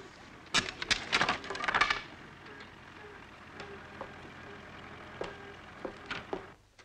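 Wooden fence slats cracking and clattering: a dense run of sharp cracks starting about half a second in and lasting about a second and a half, then a few scattered knocks.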